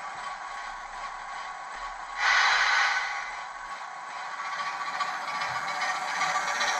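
An OO gauge model locomotive running on the track, its motor whirring and its wheels rattling over the rails. There is a louder burst about two seconds in, and the sound grows louder towards the end as the model approaches.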